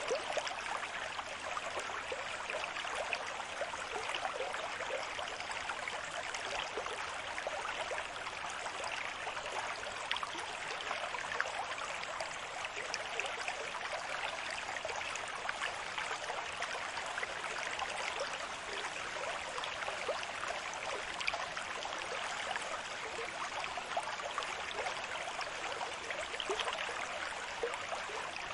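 Steady splashing water: a dense fizz of small splashes at an even level, with no rise and fall of breaking waves.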